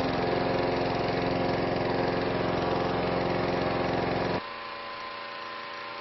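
Engine-driven inflator fan running steadily, blowing cold air into a hot air balloon envelope during cold inflation. A little over four seconds in, the sound drops suddenly to a quieter, steadier level.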